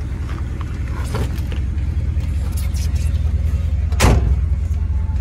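A 1958 Ford Thunderbird's 352 cubic-inch V8 idling with a steady low rumble. There is one loud thump about four seconds in.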